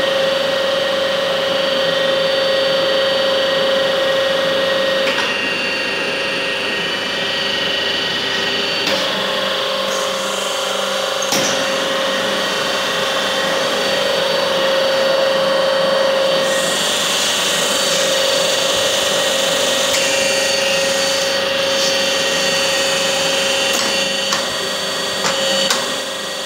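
Special-purpose milling machine running: a steady motor hum with a high ringing whine above it. The hiss on top changes a couple of times as the machine works.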